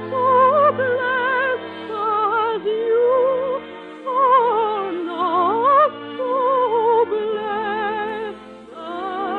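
Operatic solo singing with a wide vibrato on long held notes, over a sustained orchestral accompaniment, from an early-1950s radio musical broadcast.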